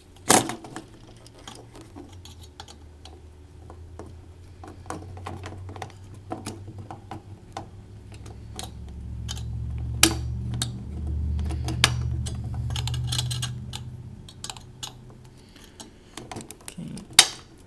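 Small metal clicks and scrapes of a flat-blade screwdriver prying at a spring clip that holds an Xbox 360 heatsink down, with three sharp louder clicks: one at the start, one in the middle and one near the end. A low hum rises and fades under it through the middle.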